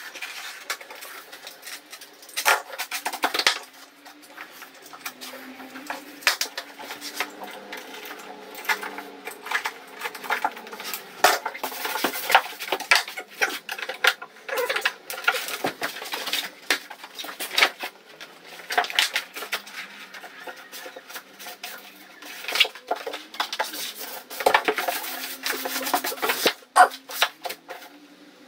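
Irregular clicks, knocks and rustling from thick wallpaper being handled, hung and pressed flat onto a wall by hand.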